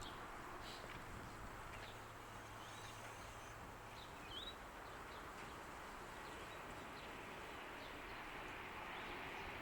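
Quiet outdoor background: a steady hiss with a few faint, short bird chirps, one about four seconds in.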